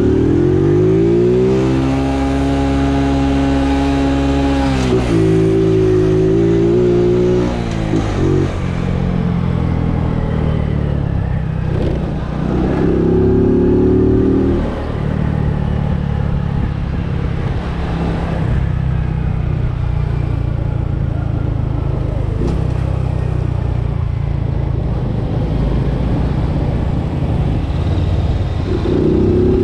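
Honda Biz step-through motorcycle's single-cylinder engine revving up through the gears. The pitch climbs, holds, drops at a shift, and climbs again several times.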